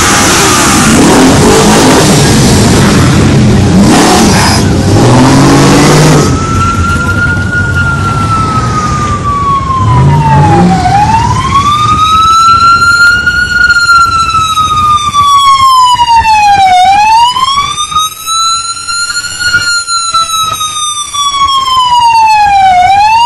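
Motorcycle engines running and revving loudly for the first six seconds. Then a siren wails, its pitch rising and falling in slow sweeps about six seconds apart.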